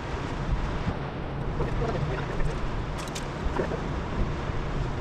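Steady wind and sea-surf noise with wind buffeting the microphone, and a few light clicks about three seconds in.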